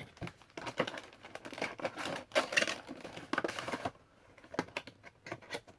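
Cardboard Funko Pop boxes and their plastic packaging being handled: a busy run of clicks, taps and crinkles that thins out to a few scattered clicks after about four seconds.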